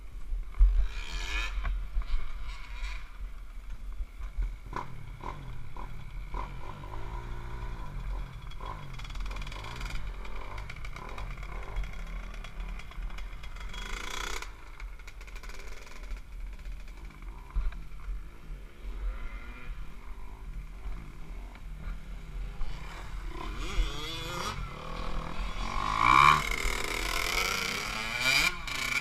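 Dirt bike engines running and revving, rising and falling in pitch, over a steady low rumble and scattered knocks from wind and handling on a helmet-mounted camera; the revving grows louder near the end.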